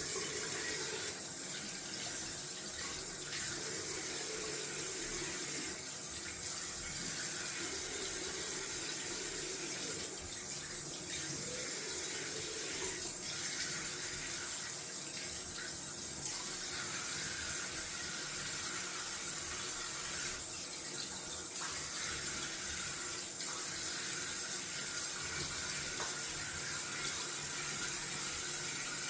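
Cold water running steadily from a bathroom tap into a sink while a freshly shaved face is rinsed.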